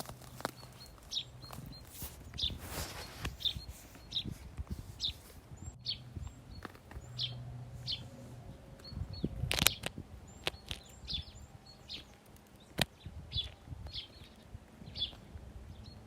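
Small birds at a feeder chirping over and over in short, high calls, about one or two a second, with a couple of sharp clicks.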